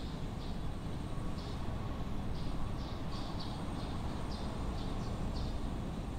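Residential-street ambience: a steady low rumble of distant traffic, with a small bird chirping repeatedly in short, high notes.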